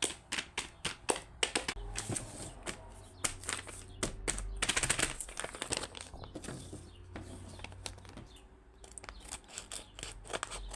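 Plastic blind-bag packet being crinkled and handled, then torn open, with rapid irregular crackles that bunch together about halfway through.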